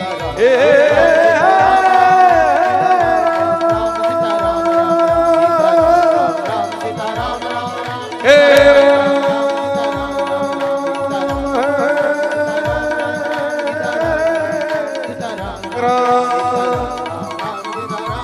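Devotional kirtan music: a man's voice holding long, wavering sung notes in drawn-out phrases, over a steady hand-drum beat of about two strokes a second.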